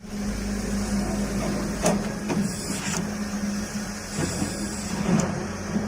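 A steady mechanical hum over a low rumble, with a few short clicks and knocks scattered through it; it starts suddenly.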